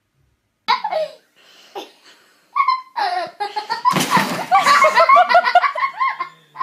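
Loud human laughter, starting after a moment of silence and breaking into rapid repeated ha-ha pulses, with a brief harsh rush of noise about four seconds in.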